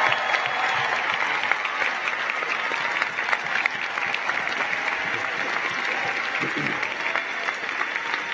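Large audience applauding, a dense patter of many hands clapping at a steady level.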